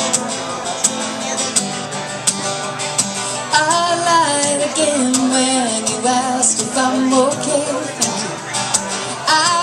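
Live song: a woman singing over a guitar strummed in a steady rhythm. The guitar plays alone at first, and the voice comes in about three and a half seconds in.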